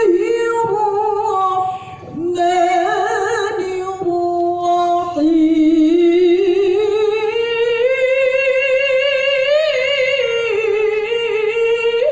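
A woman's melodic Quran recitation (tilawah), sung into a microphone and heard through loudspeakers, in long held phrases with a wavering, ornamented pitch. She breaks briefly twice early on, then holds one long phrase that slowly climbs and falls back near the end.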